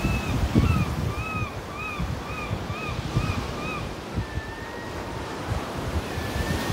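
Surf and wind buffeting the microphone. Over it a bird calls repeatedly, a run of short arched notes about twice a second, then two longer level notes near the end.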